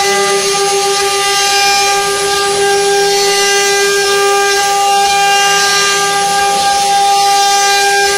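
Multi-spindle wood CNC router carving, its spindles running with a steady, unchanging whine over the noise of the bits cutting into the wood.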